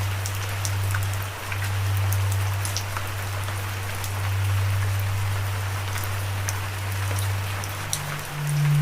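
Steady rain falling, with individual raindrops ticking sharply here and there. Under it runs a low sustained tone that steps up to a slightly higher note near the end.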